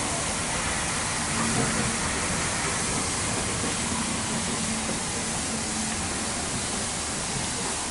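Steam locomotive standing with a steady hiss of escaping steam.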